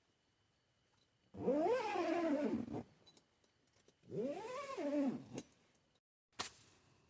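Two long drawn-out calls from a pet animal, each rising and then falling in pitch, followed by a single short knock near the end.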